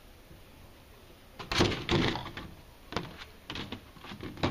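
Clear plastic humidity dome being fitted onto a black plastic seed-starting tray: a rattling clatter of thin plastic about a second and a half in, then a few lighter clicks and a sharp click near the end.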